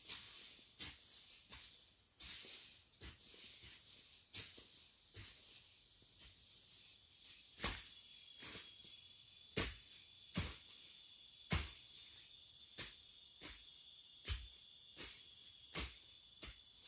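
Hoe blade chopping into dry ground in repeated strokes, about one a second, the knocks sharper and more regular in the second half. A thin steady high tone runs underneath.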